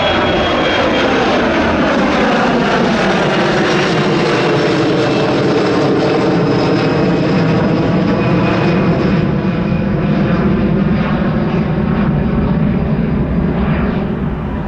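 Jet airliner passing close by, its engine noise loud and steady with a sweeping, phasing sound, easing slightly near the end.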